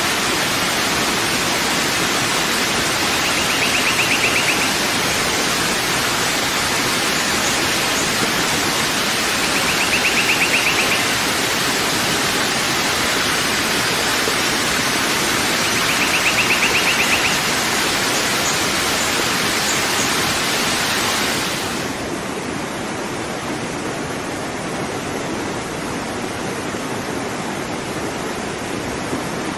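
Waterfall rushing steadily, a dense full hiss of falling water. About two-thirds of the way through it switches abruptly to a softer, duller rush of water. Before the switch, a brief high rapid trill rises over the water three times, about every six seconds.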